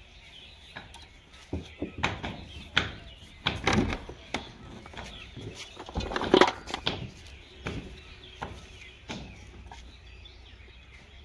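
Irregular clicks and knocks of plastic pipe fittings being handled while solvent cement is brushed on from a tin, with a louder clatter about six seconds in as a hand reaches among fittings in a metal pan.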